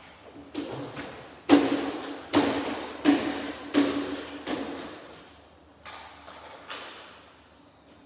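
Trigger spray bottle squirting solution onto window glass: a run of about nine quick hissing squirts, each dying away fast, loudest in the middle and thinning out near the end.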